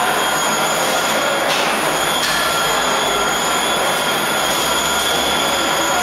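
Flow-wrapping packaging machines running: a loud, steady mechanical din with several level, high whining tones on top.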